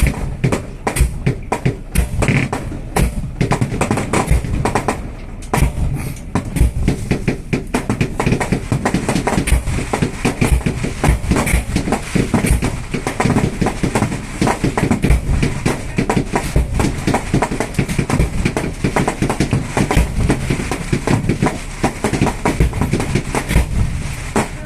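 Fireworks display: a dense, continuous barrage of shell bursts and crackling bangs, many per second, with no break.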